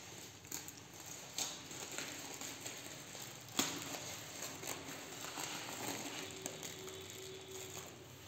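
Plastic wrapping rustling and crinkling as it is handled and pulled open by hand, with irregular sharper crackles, the loudest about three and a half seconds in.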